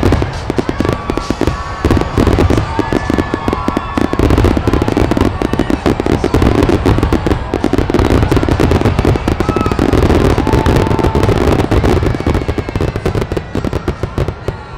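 Fireworks display barrage: many aerial shells bursting in quick succession, a rapid, near-continuous string of bangs and crackles.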